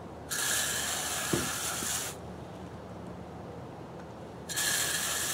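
Garden hose spray nozzle spraying water in two bursts, the first about two seconds long and the second about a second long near the end, rinsing the remaining meat off a boiled hog jawbone.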